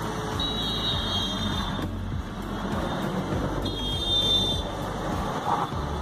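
Steady motor-vehicle noise, a low rumble with a noisy haze, with two brief high-pitched tones about three seconds apart.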